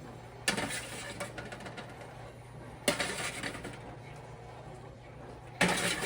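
Kitchen utensils and plates clattering while food is served: three sharp knocks, about half a second in, near the middle and near the end, with light scraping between them.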